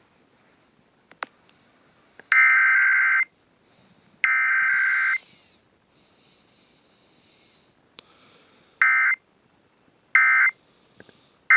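Emergency Alert System SAME digital data bursts, a harsh two-tone modem screech: two bursts of about a second each, then three short bursts about a second apart, the short triple being the end-of-message code. Faint radio hiss and a click lie between the bursts.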